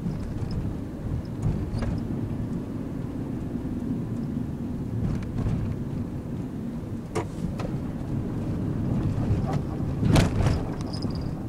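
Steady engine and road noise inside the cabin of a Nissan NV200 van on the move, with a low engine hum through the first half. A few sharp knocks sound, the loudest about ten seconds in.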